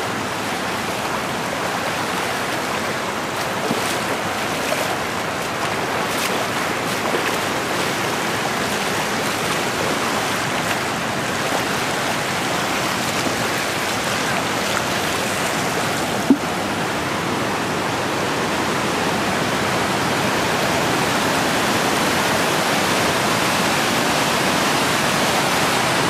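Rushing water pouring over a rock slab at a small waterfall: a steady, dense rush that grows slightly louder near the end. A single brief click sounds about sixteen seconds in.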